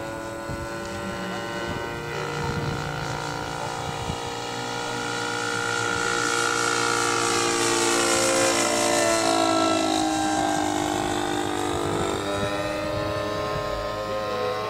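A large electric RC model airplane's motor and propeller whining at low throttle, a cluster of steady tones. It swells louder toward the middle, with the pitch shifting around the peak, then eases off.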